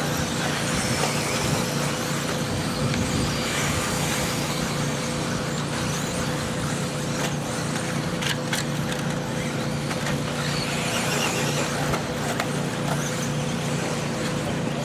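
A pack of radio-controlled 2WD buggies racing around an off-road track: a steady mix of motor whine and tyre noise, with a few sharp clicks a little over halfway through.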